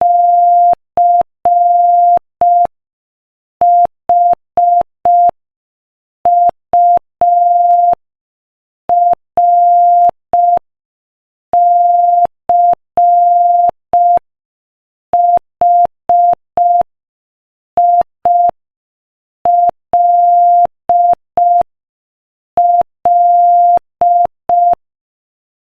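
Morse code sent at 5 words per minute as a single steady beep tone keyed into short dots and long dashes, with pauses of about a second between letters. It stops about a second before the end.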